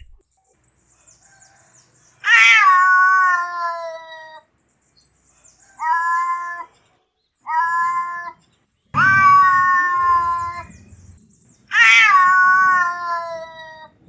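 Domestic cat meowing in five separate drawn-out calls. The first, fourth and fifth are long, about two seconds each, starting high and dropping slightly in pitch. Two shorter calls come between them.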